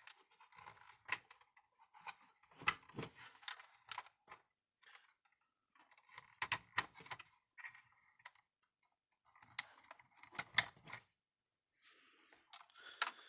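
Irregular clicks and small rattles of wire leads and plastic connectors being handled and plugged onto a fence energizer's circuit board, with a few sharper clicks among them.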